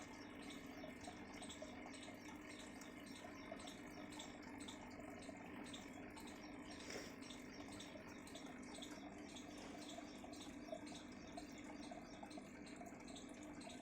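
Faint, steady trickling and bubbling of aquarium water, with many small irregular bubble ticks over a low steady hum.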